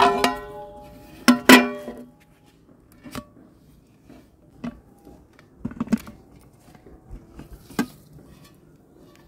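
A metal serving tray clanging against a heavy black pot twice, ringing on after each strike, as the tray is set over a pot of cooked rice. Softer clinks and knocks follow as the pot is turned over onto the tray and lifted off to turn out the rice.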